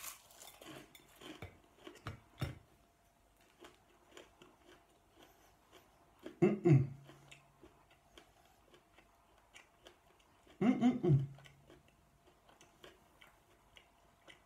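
A rice cake topped with chocolate spread and jelly sweets being bitten and chewed: crisp crunching in the first couple of seconds, then quieter chewing. Twice, short hums come through a full mouth, and faint ticking runs underneath.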